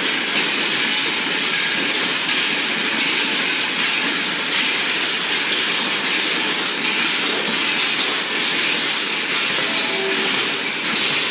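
Freight train of old boxcars rolling past close by: a loud, steady noise of steel wheels running on the rails and the wagons rattling.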